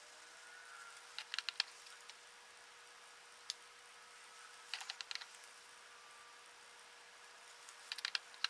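Light taps and clicks of a makeup powder brush and plastic powder compact being handled: three quick clusters of clicks and one single click, over a faint steady hum.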